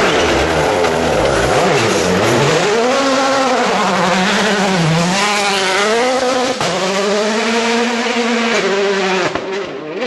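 Rally car engine at high revs, its pitch repeatedly dropping and climbing again as it changes gear and lifts off and accelerates, with a couple of sharp cracks in the second half.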